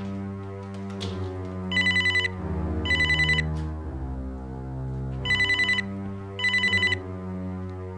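Electronic telephone ringer trilling in pairs of short rings, two double rings in all, over a low, sustained background music score.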